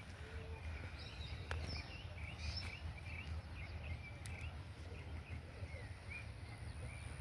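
Small birds chirping repeatedly in short calls over a steady low rumble, with a few faint clicks.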